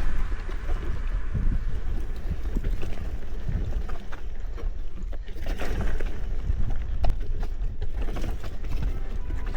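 Mountain bike riding over a dirt trail, filmed from the bike or rider: a steady low rumble with wind buffeting the microphone, and scattered clicks and rattles from the tyres and frame.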